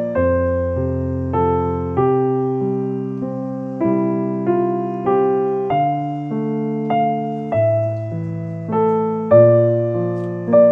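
Gentle background piano music: chords and single notes struck every half second to a second and a half and left to ring out.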